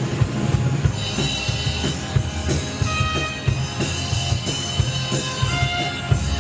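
Music with a drum kit keeping a steady, regular beat and held tones over it.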